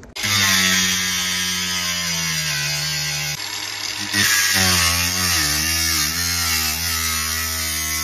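Ryobi 18V cordless angle grinder with a thin cut-off wheel starting up suddenly and cutting into a steel garage door panel. Its motor pitch sags and wavers as it takes load, with a brief dip about three and a half seconds in.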